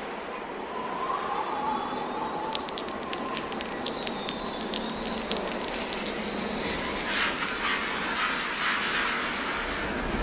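Ambient electronic soundscape accompanying a dance piece: a steady wash of noise with faint sliding tones, a scatter of sharp clicks a few seconds in, and a thicker hissing texture near the end.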